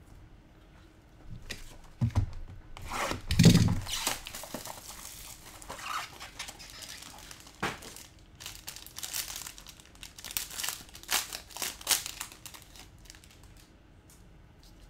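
Trading-card packaging being handled and opened: a couple of dull knocks about two and three and a half seconds in, then irregular crinkling and tearing of plastic wrapper for about ten seconds.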